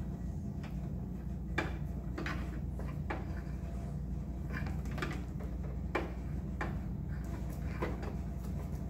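Cables and plastic plug connectors being handled inside an open vending machine door, giving scattered clicks and knocks against the cabinet, over a steady low hum.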